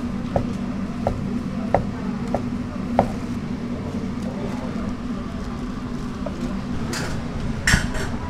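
Cleaver knocking against a wooden cutting board while slicing cooked offal, about five evenly spaced knocks in the first three seconds, over a steady low hum. Two short bursts of noise come near the end, the second the loudest sound.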